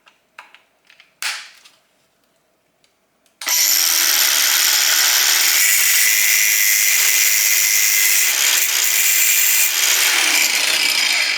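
A few light knocks, then about three and a half seconds in a power tool starts cutting a support leg in half. It makes a loud, steady, hissing cutting noise for about eight seconds, which dies away at the end as the cut finishes.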